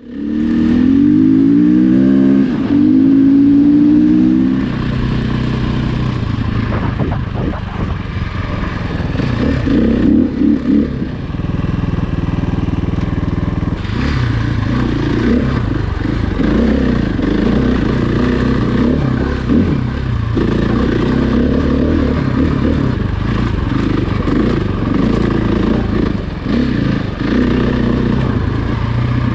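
Engine of an off-road trail vehicle under way. For the first few seconds its pitch climbs in several quick steps as it accelerates. After that it runs steadily on the trail, with the throttle rising and falling and some clatter.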